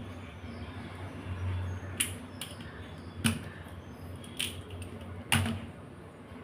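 Raw crab shells cracking and snapping as they are broken apart by hand: about five sharp cracks, the loudest near the end.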